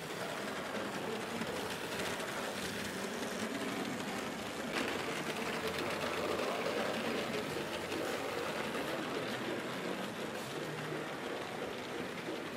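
Old tinplate toy train running on tinplate track: a steady whir from its electric motor with the wheels rattling over the rails.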